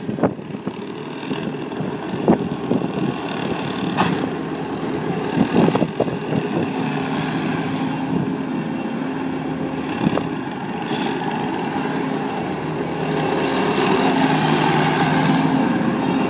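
Bobcat compact track loader's diesel engine running steadily as the machine drives, with a few sharp knocks along the way. It grows louder near the end as the loader comes closer.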